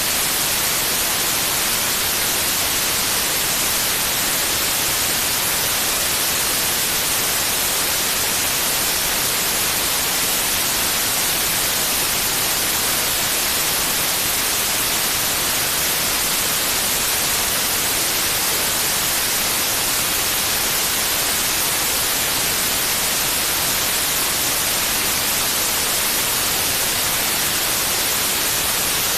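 Steady white noise: an even hiss, brightest in the treble, with no change in level.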